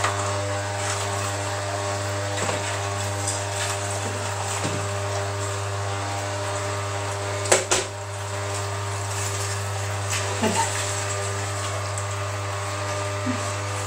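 Vertical slow juicer running with a steady motor hum while orange pieces are pressed down its feed chute, with a few short knocks, the sharpest about seven and a half seconds in.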